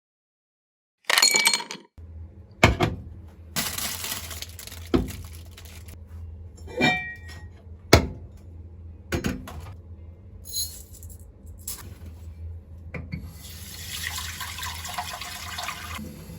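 Kitchen work sounds: scattered sharp clinks and knocks of glass and utensils, with tap water running for a few seconds near the end.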